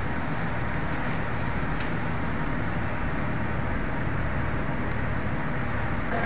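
Steady rumbling of the stove's fire under a large aluminium pot of lamb meat boiling in salted water.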